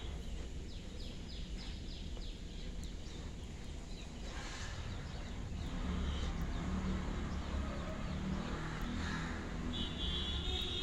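Outdoor ambience with a low rumbling noise, louder from about six seconds in. A small bird gives a quick run of about six high chirps in the first two seconds. A steady high electronic tone starts near the end.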